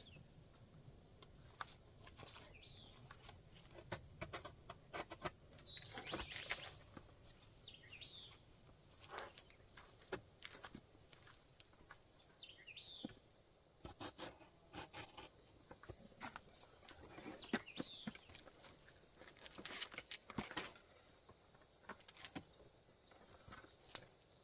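Scattered clicks and rustles of tarp packaging being handled and worked open, with a few short bird chirps now and then.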